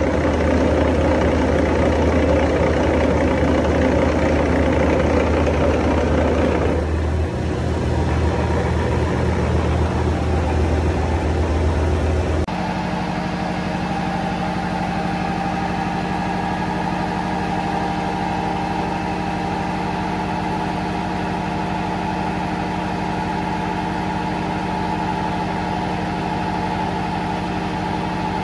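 Steady drone of an engine running in a boat's engine room, holding one even tone; the sound shifts about seven seconds in and again, more sharply and a little quieter, about twelve seconds in.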